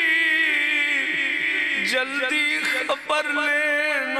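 A man singing unaccompanied into a microphone: long held, wavering notes, with a short break about three seconds in.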